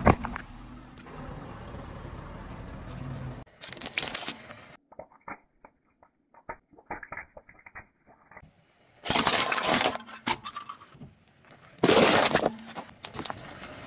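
A series of objects crushed under a car tyre: a sharp crack as a drinks can bursts, then a run of small plastic snaps as ballpoint pens break, then loud crunches of plastic, the last a plastic box giving way about twelve seconds in.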